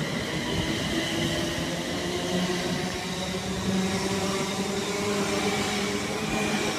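London Midland Class 350 Desiro electric multiple unit moving through the station: a steady electric whine with several held tones over rolling noise.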